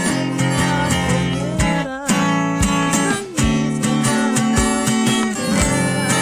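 Background music: a song led by strummed acoustic guitar over a steady beat.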